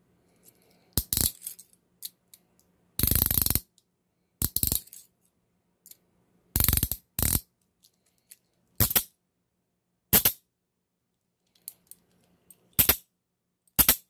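Hiatt Peerless steel handcuff being worked by hand: the bow ratcheting past the single pawl and the steel parts clinking, in about nine short bursts of clicks with pauses between. The longest run of clicks comes about three seconds in.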